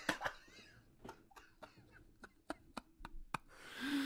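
A run of light, sharp clicks, about three a second, then a soft hiss near the end.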